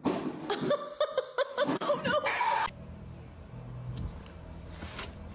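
A person chuckling and laughing for a couple of seconds, then a low steady hum with a few faint clicks.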